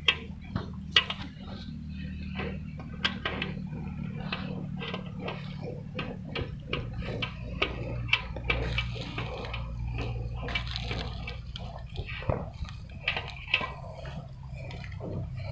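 Jets of milk from a water buffalo being hand-milked squirting into a steel pail, in quick, uneven spurts several times a second. A steady low hum runs underneath.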